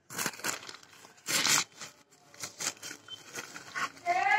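Rustling handling noise with a few light knocks as small items are pulled off a cluttered shelf, loudest in a burst about a second and a half in. A voice starts just before the end.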